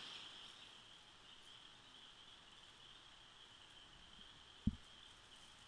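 Near silence, with a faint, steady, high-pitched insect chorus, such as crickets, and one soft thump a little before the end.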